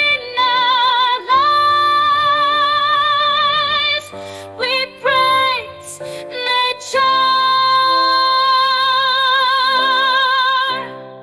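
A song: a female voice sings long held notes with vibrato over soft instrumental accompaniment, fading down near the end.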